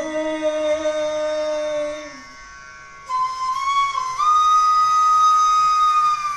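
A man's voice holds a sung sargam note for about two seconds. A bamboo bansuri flute then comes in, plays a short phrase and bends up into a long held high note, the last note 're' bent against 'sa'.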